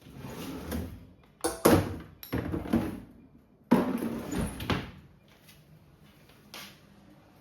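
A few household knocks and thuds in a small room, three short bursts with the sharpest bang about one and a half seconds in, like doors or things being put away.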